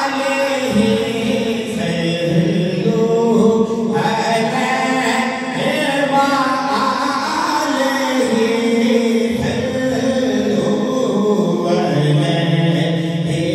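A man reciting a naat, singing into a microphone in long, wavering held notes.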